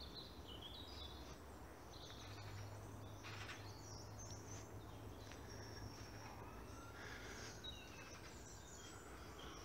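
Faint woodland birdsong: scattered high chirps and short song phrases from small songbirds over a low, steady rumble of distant traffic. From about seven seconds in, a distant emergency-vehicle siren rises and wails faintly beneath the birds.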